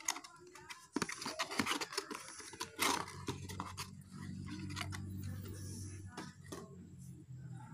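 Cardboard box being opened and handled by hand, with scraping and rustling in the first few seconds. A steady low drone comes in about three seconds in and runs underneath.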